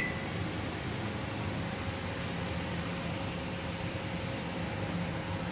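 Steady room noise: a low hum and hiss with one faint steady tone running under it, and no distinct event.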